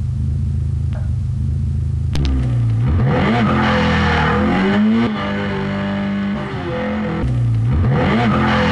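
Car engine running steadily, then revving repeatedly from about two seconds in, its pitch rising and falling several times.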